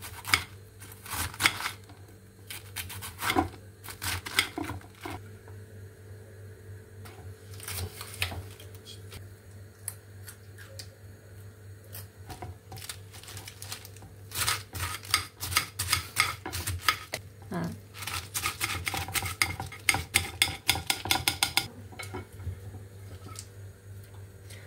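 Small kitchen knife cutting iceberg lettuce on a ceramic plate: scattered knocks and clinks of the blade against the plate. In the second half comes a quicker run of rattling clinks of metal on dishware.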